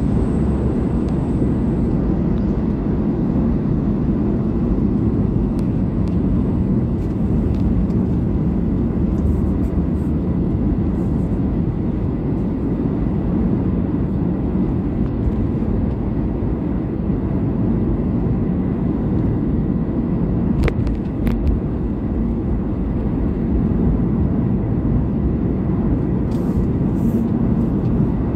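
Steady road and engine noise inside a moving car's cabin, mostly a low rumble, with one short click about two-thirds of the way through.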